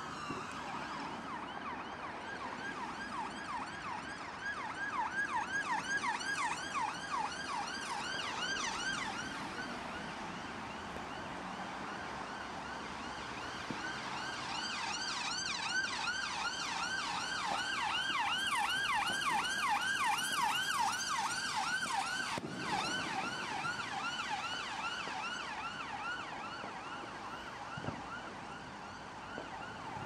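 Emergency-vehicle sirens on a fast yelp, the pitch sweeping up and down several times a second. The sirens swell louder twice, and for a stretch in the second half two sirens overlap.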